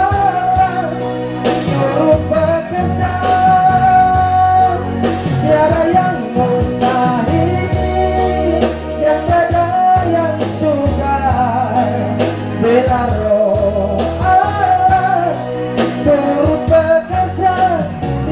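A man sings an Indonesian gospel song into a microphone, holding long notes, over electronic keyboard accompaniment with a steady bass line.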